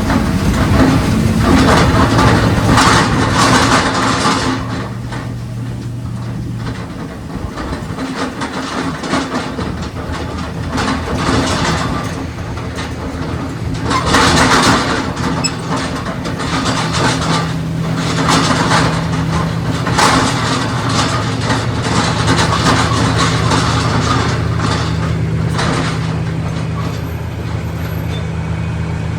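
An engine running steadily, its pitch shifting a little twice, with repeated louder rushing surges laid over it.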